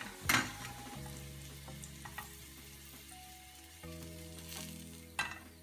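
Hot oil sizzling in a stainless steel frying pan as browned onion slices are lifted out with a slotted metal spoon, with a sharp knock of the spoon on the pan just after the start and another near the end. Background music of held notes comes in about a second in.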